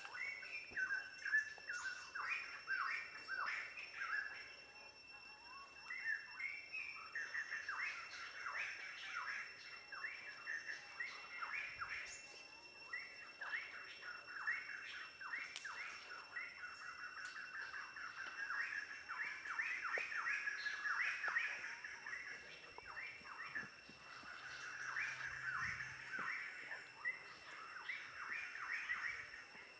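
Small birds chirping and twittering continuously in a busy chorus of short, quick notes, over a faint steady high-pitched tone.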